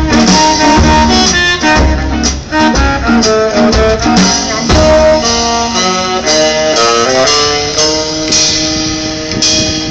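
Live swing band playing an instrumental break, with saxophones carrying the melody over a plucked upright bass.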